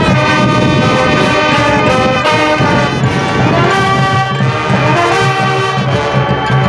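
High school marching band playing its field show, the brass section of trumpets and trombones carrying loud sustained chords over drums.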